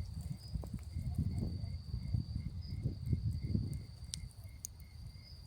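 Night insects calling: a steady high trill and a regular chirp a few times a second, over low irregular rumbling with a few sharp crackles from a campfire.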